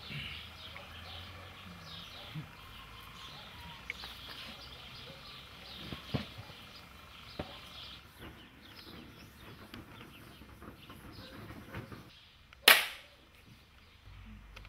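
Faint outdoor background with birds chirping and a few soft knocks. About two-thirds of the way through comes a single loud, sharp crack that dies away quickly; it is by far the loudest sound.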